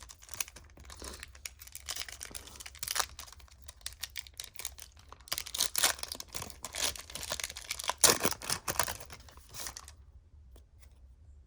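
Trading cards being handled and shuffled by hand: a run of rustles, crinkles and light clicks of card stock, busiest about two-thirds of the way through, then dying down near the end.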